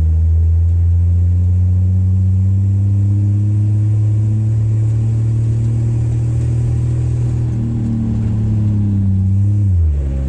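A 1962 Rambler Classic's six-cylinder engine pulling the car along, its revs climbing gradually, then falling off sharply near the end as the throttle is let off.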